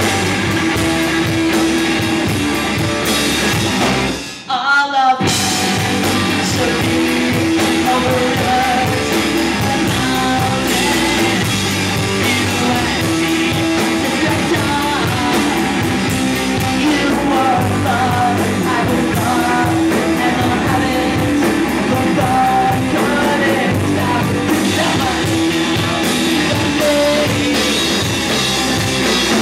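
Rock band playing live: electric guitar, bass guitar and drum kit, with a man singing. The band stops dead for under a second about four seconds in, then comes back in.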